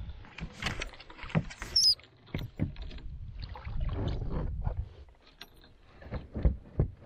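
Irregular knocks and rattles of a paddle and fishing rod being handled against the hull of a fishing kayak while a hooked fish is reeled in. There is a stretch of rushing noise in the middle.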